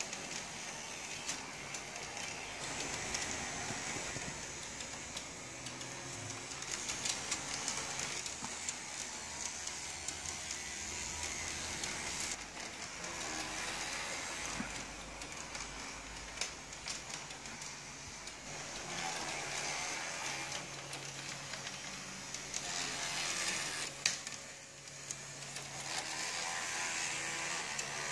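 Model tram running on its track: the small electric motor and gearing whir while the wheels roll on the rails, swelling and fading as it circles the layout, with occasional sharp clicks.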